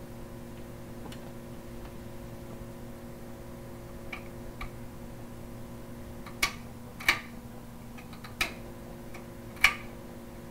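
Fingers snapping, about six separate snaps at an uneven pace: two faint ones, then four louder ones in the second half, the last the loudest, over a steady low room hum.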